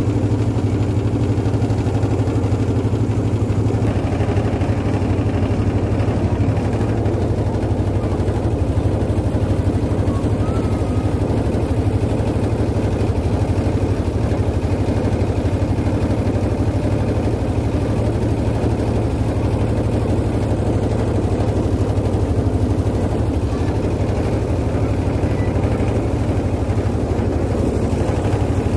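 Boat engine running steadily, a low, even drone that holds without change.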